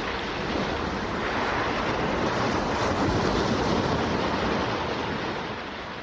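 Sea surf washing in waves, a rushing swell that builds and then slowly fades away near the end.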